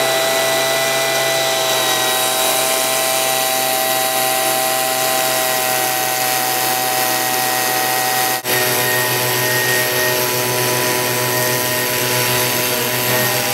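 Stihl handheld blower running steadily at high speed, forcing air through a hose into lifting air bags. About eight seconds in the sound breaks off for an instant and runs on at a slightly different pitch.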